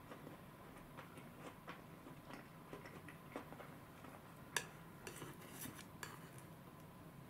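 Faint, scattered clicks and taps of plastic chopsticks and a small ceramic soy sauce dish being handled, with one sharper click about four and a half seconds in and a few more soon after.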